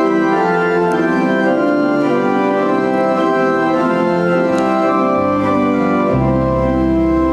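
Instrumental introduction to a hymn: sustained organ-style keyboard chords held steadily, with a low bass line coming in about five seconds in.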